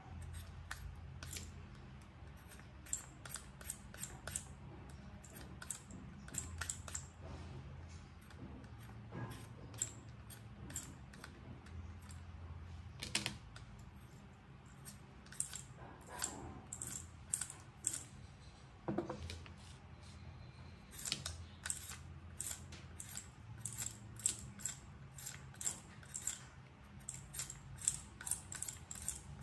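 Y-shaped vegetable peeler scraping the skin off a red-skinned potato in quick, irregular strokes, several a second in runs, over a faint low hum.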